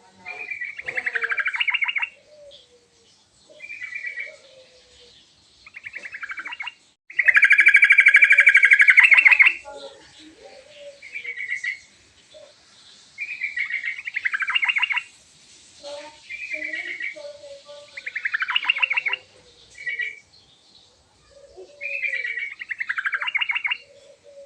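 Yellow-vented bulbul singing loud, chattering song phrases of one to two seconds each, repeated with short pauses; the longest and loudest phrase comes about a third of the way in. Fainter, lower-pitched chirps sound between the phrases.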